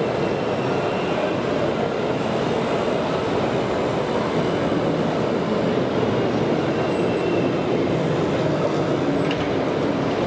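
A steady, even rumble of background noise from a large, busy exhibition hall, with no distinct events standing out.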